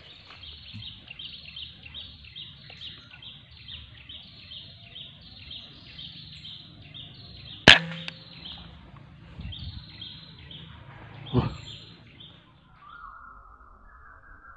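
Two sharp cracks from a PCP air rifle being fired: the louder about halfway through, a duller one about four seconds later. Behind them a bird chirps in a steady series of short falling calls, about two a second.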